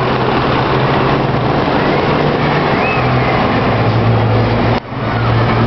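Loud, steady outdoor background noise with a low hum under it, briefly cutting out about five seconds in.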